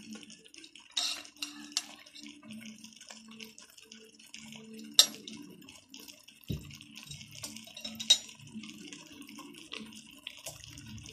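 A steady faint hiss from chicken sizzling in a steel pot, with a few sharp clinks of a steel spoon as spoonfuls of chilli powder are scooped and tipped in.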